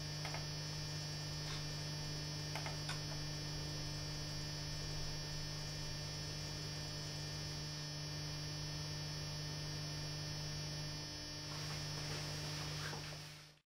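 Steady electrical mains hum, with a few faint clicks in the first three seconds; it cuts off abruptly just before the end.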